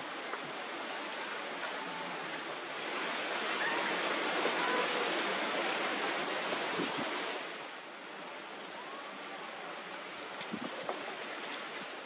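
Steady outdoor rushing noise, most likely wind in trees and over the microphone, swelling for a few seconds in the middle, with a few faint short whistled calls.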